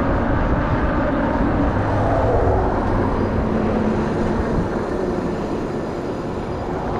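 Steady wind and road noise from riding a Hiboy P6 fat-tire electric bike on pavement under pedal assist: air rushing over the microphone and the fat tyres rolling, loudest in the low range.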